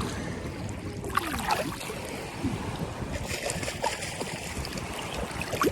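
Seawater sloshing and splashing close around swimmers, a continuous watery wash with small splashes scattered through it.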